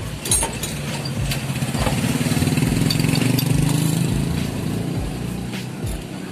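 A small engine running past, like a motorcycle or tricycle, growing louder for a couple of seconds and then fading away. A couple of light metallic clinks sound at the start.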